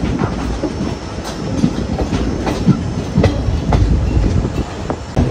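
ICF passenger coach wheels clacking irregularly over rail joints and points, over a steady running rumble, heard from aboard the moving train as it enters a station.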